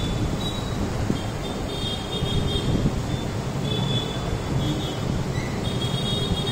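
Heavy rain pouring down in a steady, dense rush.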